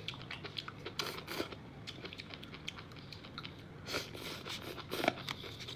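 Chewing and mouth sounds of someone eating sushi: a scattered run of short soft clicks and crunches, a little stronger about a second in and again near the end.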